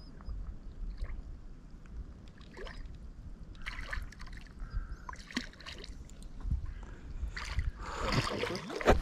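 Water splashing and sloshing as a large carp, hooked on a fly rod, is played close in at the end of the fight; short irregular splashes that grow louder and busier near the end, as the fish comes to be landed.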